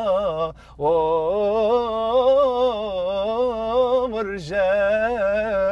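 A man singing an Arabic love song unaccompanied, drawing out long, wavering notes, with a short breath about half a second in and another a little after four seconds.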